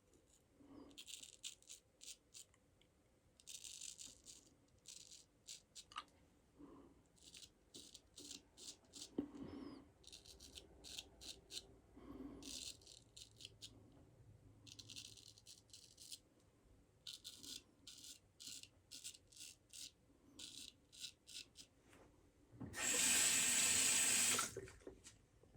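Straight razor scraping through lathered stubble in clusters of short, quick, scratchy strokes. Near the end a tap runs loudly for about a second and a half, rinsing.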